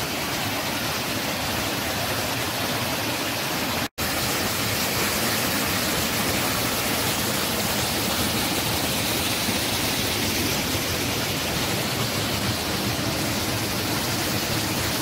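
Steady rushing of a creek cascading over rock ledges and a waterfall, cutting out for a split second about four seconds in.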